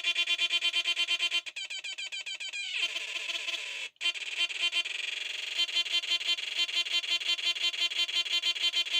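Electronic sound machine producing a rapidly pulsing buzzy tone, about eight pulses a second. About three seconds in the pitch sweeps down, then the sound cuts out for an instant and the pulsing starts again.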